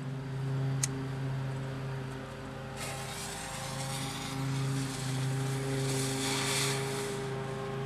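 A smoke bomb's fuse fizzing and hissing for about four seconds, starting a few seconds in and strongest near the end, over a steady low mechanical hum. A single sharp click comes about a second in.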